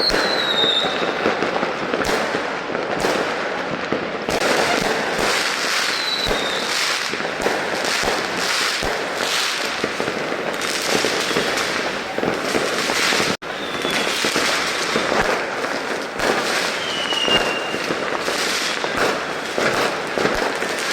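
Fireworks going off without a break: dense, rapid crackling and popping, with a few short whistles falling in pitch.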